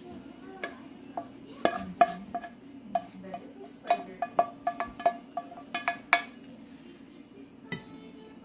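Serving spoon clinking and scraping against a stainless steel pan and a ceramic plate as food is pushed out. A string of sharp clinks with a short ring, thickest from about a second and a half to six seconds in.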